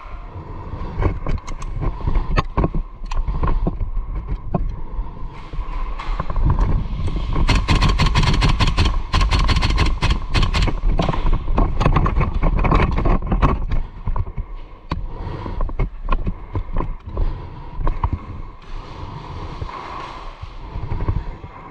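Airsoft gunfire: scattered sharp shots and clicks, then a dense run of rapid shots in the middle, thinning out again toward the end, over a steady low rumble.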